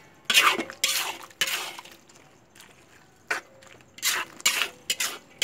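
Metal spatula scraping and clanking against a metal wok while thick stir-fry is stirred, in quick irregular strokes with a quieter pause in the middle. The stirring goes on until the liquid in the pan thickens.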